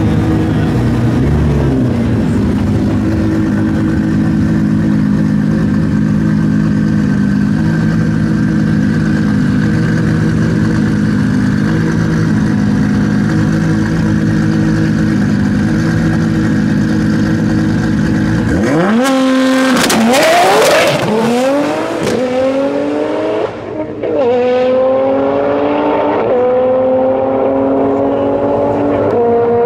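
Nissan GT-R drag car's twin-turbo V6 held at steady revs on the start line, then launching about 19 seconds in, the engine note climbing in repeated rising sweeps as it shifts up through the gears down the strip.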